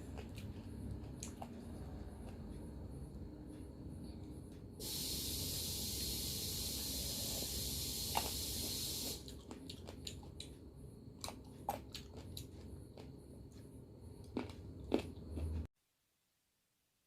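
Faint eating sounds: chewing and small wet clicks of grapes being bitten, over a low room hum. A steady hiss runs for about four seconds in the middle, and near the end the sound cuts to silence.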